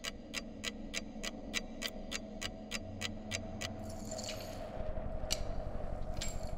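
Wall clock ticking fast and evenly, about three ticks a second, over a steady low hum. The ticking stops about four seconds in, and a mop then swishes across a concrete floor, with a couple of sharp clicks.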